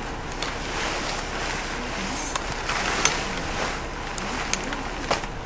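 Blizzard wind blowing steadily across the microphone, with a few sharp clicks and knocks, the loudest about three seconds in.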